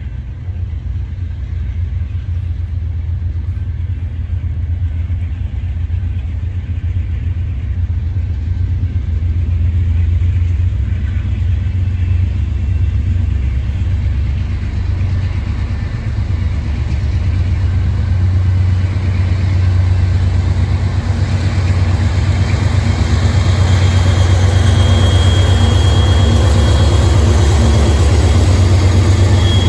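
Diesel freight locomotives of a CSX train approaching under power, their engines giving a deep, steady rumble that grows steadily louder as the units close in and pass.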